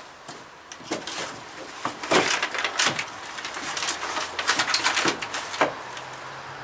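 A treated-pine timber leg being handled and set into place against a wall: a run of wooden knocks and scrapes from about one to six seconds in, loudest a little after two seconds.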